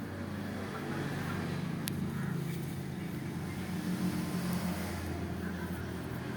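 An engine running steadily as a low hum, with a single sharp click about two seconds in.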